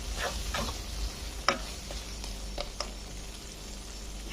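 Fried sardines being stirred in a spiced vinegar masala in a pan on low heat: a light steady sizzle, with a few sharp scrapes and clinks of the utensil against the pan.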